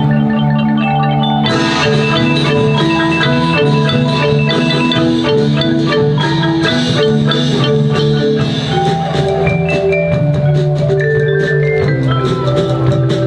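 Percussion ensemble playing a melody on marimba and other mallet instruments. About a second and a half in, more instruments join and the sound becomes fuller and brighter.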